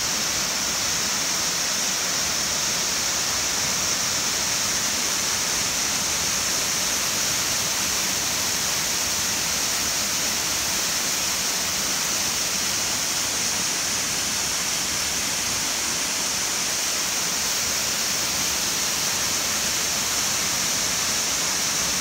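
Waterfall pouring down a grassy rock face, heard close up as a steady, unbroken rush of falling water with a strong hiss.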